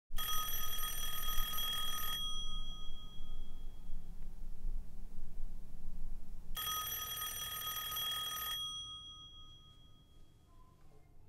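Telephone ringing: two rings of about two seconds each, some four seconds apart, over a low hum that fades away near the end.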